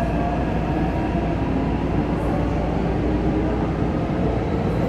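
Cabin noise of a Taipei Metro C381 steel-wheel metro train running between stations: a steady low rumble of wheels on rail, with a thin whine that rises slowly in pitch.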